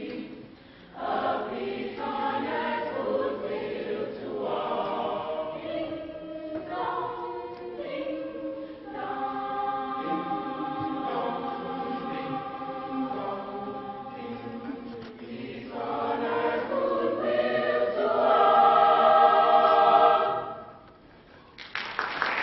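High school choir singing, building to a loud held final chord that cuts off sharply about twenty seconds in. After a brief hush, audience applause starts at the very end.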